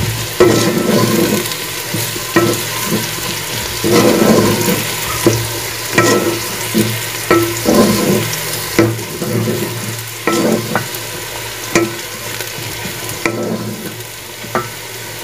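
Chopped onions sizzling as they fry and brown in hot oil in a metal pot, stirred with a wooden spoon that scrapes and knocks against the pot at irregular moments.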